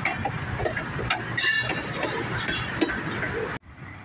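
Freight cars rolling past at close range: steady wheel-on-rail noise with clicks and clanks, and a brief metallic ringing about a third of the way in. Near the end it cuts off suddenly to a much quieter background.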